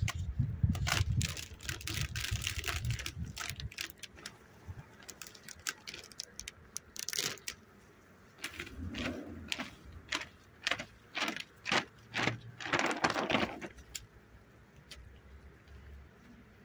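Clear plastic hive foil being peeled off the top bars of a beehive, crinkling and crackling in irregular bursts that die away about two seconds before the end.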